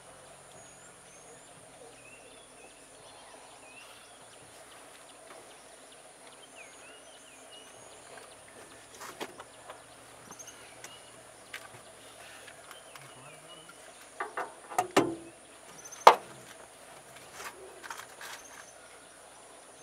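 Marsh ambience: a steady high-pitched insect drone with scattered short bird chirps, broken near the end by a few sharp knocks and clicks, the loudest about sixteen seconds in.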